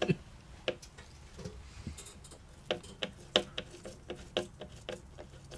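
Faint, irregular light clicks and ticks of a small screw being turned by hand into a motherboard.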